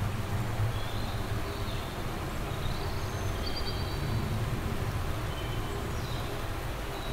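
Lakeside outdoor ambience: a steady low rush, with small birds chirping briefly and high several times.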